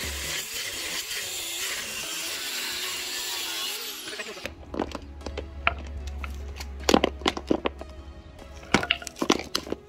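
Angle grinder cutting into a GasGas motorcycle muffler's metal shell, a steady dense grinding noise that stops about four seconds in. Then a run of sharp clicks and knocks, the loudest around seven and nine seconds in, over background music.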